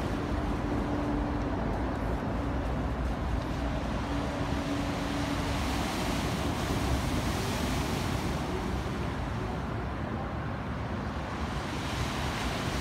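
Sea waves breaking and washing against a rock breakwater, a steady surf noise with a heavy rumble of wind on the microphone. A faint steady hum sits under it in roughly the first half.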